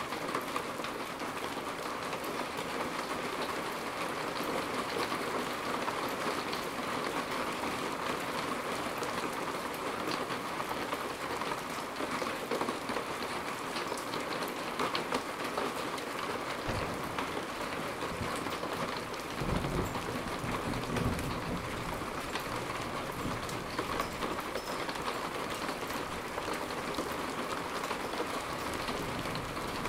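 Steady rain falling, with a dense patter of drops. A low rumble of thunder comes in a little past halfway and swells for a few seconds before trailing off.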